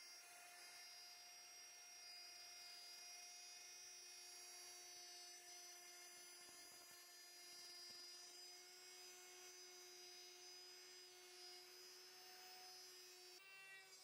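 Handheld electric router running at speed, its bit cutting along the edge of a wooden board for a tongue-and-groove joint: a steady high whine that holds one pitch, then shifts abruptly near the end.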